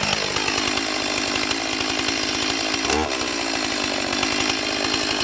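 Stihl MS 170 two-stroke chainsaw, just started, falling steeply in pitch from its fast idle to a steady idle within the first half second. About three seconds in, a short blip of revs rises and falls before it settles back to idle.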